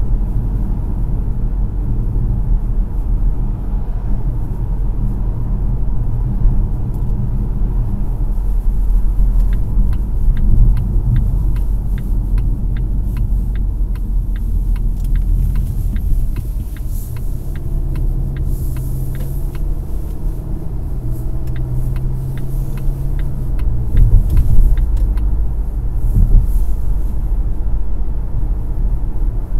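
Road and engine rumble inside a Volvo XC40's cabin while driving, picked up by a Garmin Dash Cam Mini's built-in microphone. A run of light, evenly spaced ticks sounds for several seconds through the middle.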